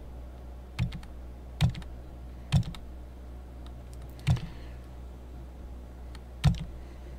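Computer keyboard keys pressed one at a time, five sharp clicks roughly a second apart, as when stepping back through earlier commands in a terminal. A steady low hum lies under them.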